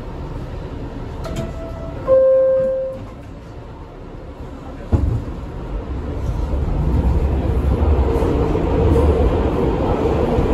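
NYC subway R62A car's two-note falling door chime, then the doors shut with a sharp knock and the train starts off, its low rumble growing steadily louder as it pulls out of the station.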